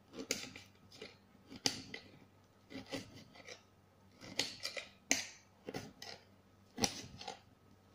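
Kitchen knife slicing long green peppers on a glass cutting board: a series of irregular crisp cuts, each ending in a sharp tap of the blade on the glass.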